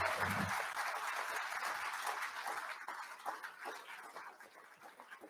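Audience applauding, loudest at the start and gradually dying away to a few scattered claps by the end.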